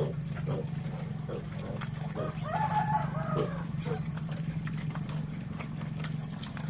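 Farm animals calling: a string of short calls, with one longer, wavering call about two and a half seconds in, over a steady low hum.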